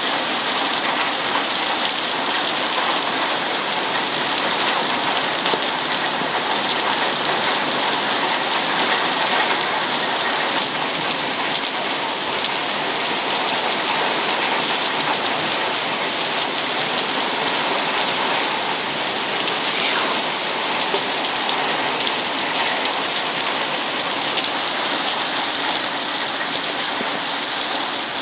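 Rain pouring steadily during a thunderstorm, a dense even hiss that holds at the same level throughout.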